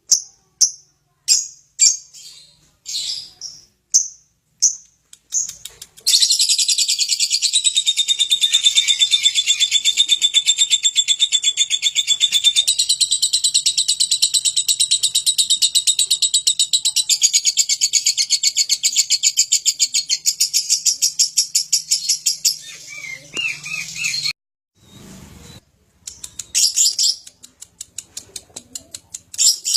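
Lovebird singing. A few separate high chirps come first. About six seconds in, a long, rapid, pulsing chatter starts: the 'ngekek' song. It runs unbroken for about eighteen seconds, then stops abruptly, and a few more chirps follow near the end.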